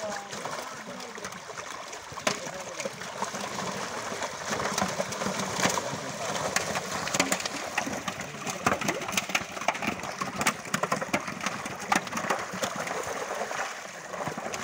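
Water splashing as a crowd of fish thrash in shallow water inside a drawn-in net, with hands working among them: a dense, irregular run of sharp splashes, busiest in the middle.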